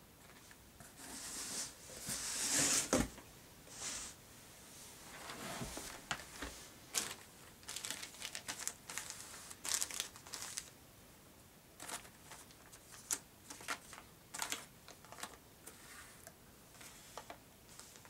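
Plastic packaging being handled: crinkling and rustling, with a louder stretch of rustling about two to three seconds in and then many short, sharp crinkles and ticks.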